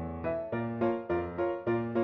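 Background music led by piano, with chords and melody notes struck in a steady rhythm.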